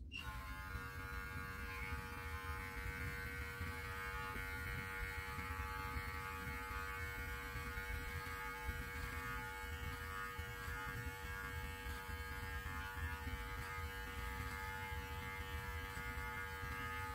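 Cordless electric beard clippers running with a steady hum while cutting stray hairs under a long beard; they switch on at the very start and off near the end.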